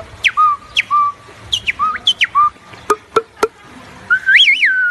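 Hand whistle through cupped hands, imitating a bird call: several sharp whistles that fall steeply in pitch and settle into a short held note. Three quick clicks come about three seconds in, and a wavering, warbling whistle follows near the end.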